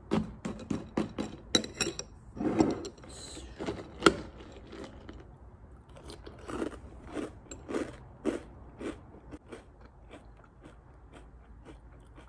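Loud crunchy chewing of Kellogg's Eggo chocolate waffle cereal in milk, the pieces still super crunchy after soaking; the bites settle into a steady chew about twice a second that grows fainter near the end.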